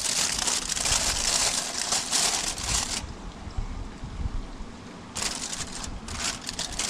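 Aluminium foil crinkling and rustling as it is folded into a pouch around fish, with a quieter, duller stretch about three seconds in before the crinkling resumes.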